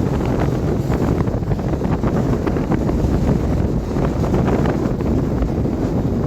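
Hurricane Ian's wind buffeting the microphone: a loud, continuous rumbling roar, with many small ticks scattered through it.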